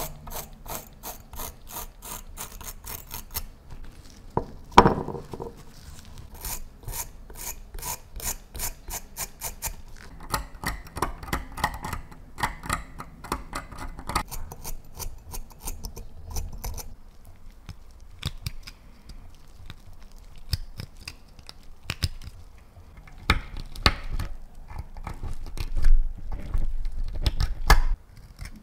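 A small brass wire brush scrubbing rust off a tiny bronze-and-brass lighter body in quick, even strokes, then a metal pick and a flat blade scraping and picking at the rust crust. The later scrapes come more unevenly and are loudest near the end.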